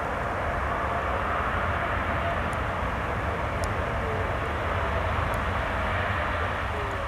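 Twin-engine widebody airliner's jet engines running with a steady rumbling roar as the jet moves along the runway.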